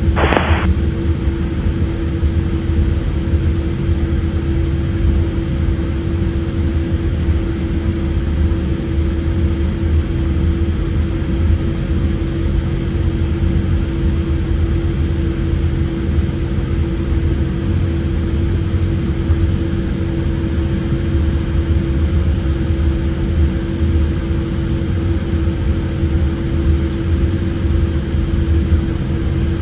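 Cabin noise of a Boeing 787-8 taxiing, heard through the fuselage beside the wing: a steady low rumble from its GEnx-1B engines at taxi power, with a constant droning tone over it.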